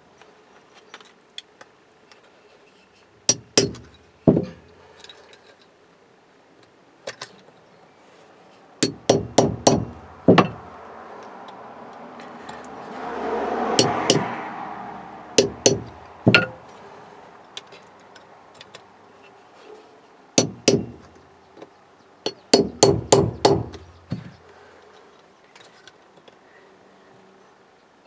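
Light hammer taps on a chisel against a thin steel Speedi-Sleeve on a distributor shaft: clusters of two to five quick metallic clinks with pauses between, scoring the sleeve's installation flange so that it tears off. About midway a rush of noise swells and fades over a few seconds.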